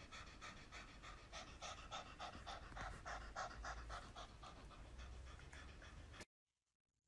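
Domestic cat panting with its mouth open: quick, faint, even breaths about three a second, cutting off suddenly near the end.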